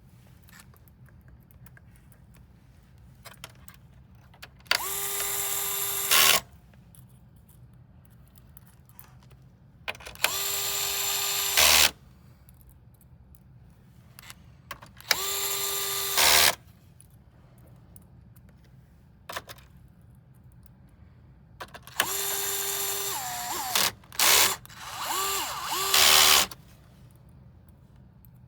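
Electric screwdriver driving screws: several short runs of one to two seconds each at a steady pitch, the last few shorter and broken up.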